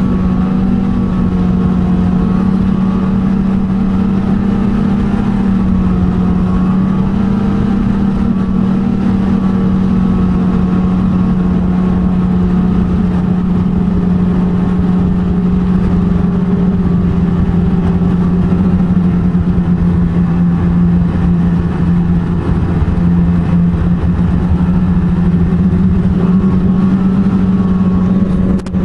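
Snowmobile engine running at a steady cruising speed on a trail ride, holding an even pitch with only small rises and falls of the throttle.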